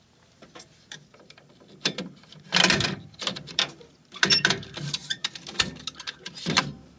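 Hard plastic clicks and knocks from an HP Designjet printhead being pushed into its carriage and the carriage latch being swung closed. The clatter starts about two seconds in, with a louder snap near the end.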